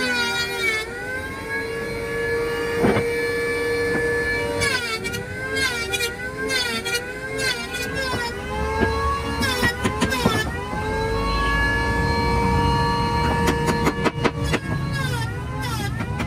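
Electric hand planer's motor whining, its pitch sagging each time it bites into the wood and climbing back as it frees up, over and over, with a few sharp knocks among it.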